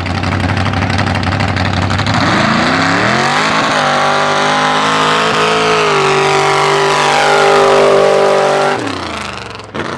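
Lifted mud truck's engine running at full throttle while it drags a tractor tire through dirt. The revs climb over the first few seconds, hold high, then the throttle is let off near the end and the engine note drops away.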